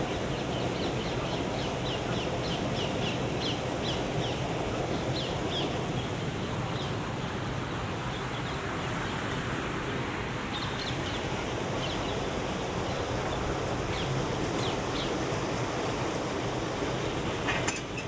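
Steady rush of flowing river water, with a small bird singing a quick run of short high chirps, about three a second, for the first several seconds and a few more scattered chirps later.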